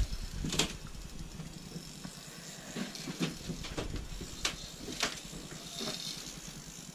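Spinning reel and rod being handled: a few light clicks and taps at uneven spacing, with a faint hiss about six seconds in.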